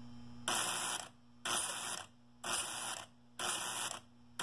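Steady low electrical hum, overlaid from about half a second in by bursts of hiss that repeat about once a second.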